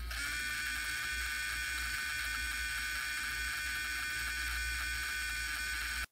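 Small DC gearmotor spinning a wheel: its high-pitched whine jumps up in pitch and loudness at the start as the LQR speed controller steps the target speed up, then runs steady at the higher speed. It cuts off suddenly near the end.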